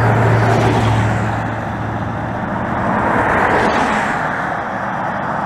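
Road traffic passing close by: a car swells and goes past about three to four seconds in, over a steady rushing noise. A low steady hum fades out in the first second or two.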